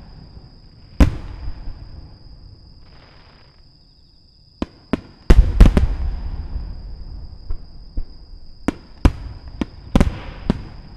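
Aerial firework shells bursting. There are about a dozen sharp booms, each with a rolling echo, and the loudest, densest volley comes about five seconds in.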